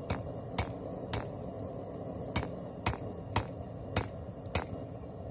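Light taps of a wide, flat hammer on a hot Damascus billet of bandsaw-blade and pallet-strap layers on a steel anvil, setting the forge weld. There are eight sharp strikes: three about half a second apart, a pause of about a second, then five more at the same pace.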